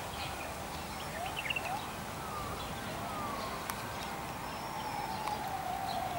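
Steady outdoor background noise with a few short rising bird-like chirps about a second in, and a faint long tone that slowly falls in pitch through the second half.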